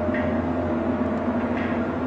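A steady, unexplained low droning hum of several held tones, the kind of sound reported as "the Hum". Two faint, brief higher sounds come through, just after the start and about a second and a half in.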